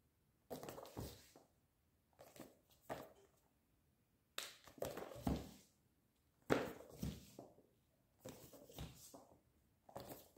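Paperback comic volumes being handled by hand: covers sliding and volumes set down on a stack, with a soft thump and paper rustle every second or two.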